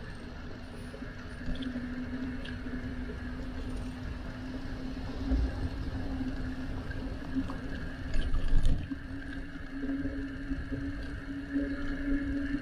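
Bicycle riding noise: wind rumbling on the microphone and a steady hum that slowly rises a little in pitch, with a few light clicks and a louder rumbling patch about eight seconds in.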